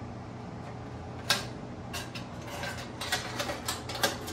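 Metal clinks and light rattling of an electric stove's coil burners and drip pans being handled and fitted back into the stovetop: one sharp clink about a second in, then a run of clicks near the end, over a steady low hum.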